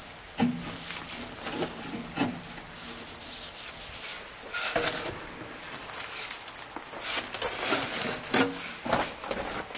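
Wet concrete mix sliding out of a tipped steel wheelbarrow onto gravel, with irregular knocks and scuffs from the barrow and rubber boots on the gravel, busiest near the end.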